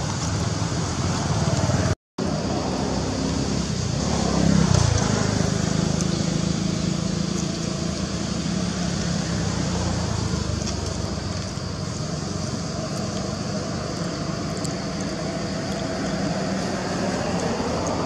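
A motor vehicle's engine hums steadily. About four seconds in, its pitch drops as it passes.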